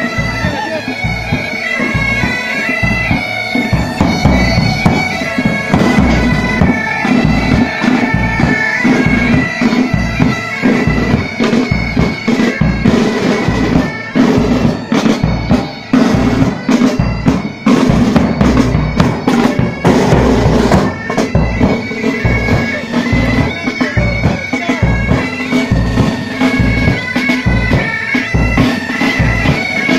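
Pipe band playing: Highland bagpipes sound a steady drone under the chanter melody while side drums and a bass drum beat along. The drumming grows busier and denser through the middle.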